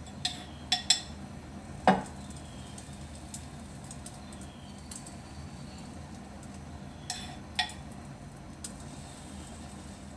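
A metal spoon clinks against the glass batter bowl and the skillet, a few sharp ringing clinks near the start with the loudest about two seconds in, and a few more near the end. Underneath is a faint steady sizzle from the small pancakes frying in butter.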